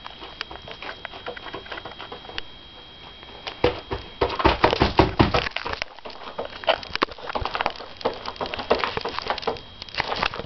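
Adesso flexible rubber mini keyboard being slapped by hand, an irregular patter of soft slaps on the rubber, thickest for a couple of seconds in the middle.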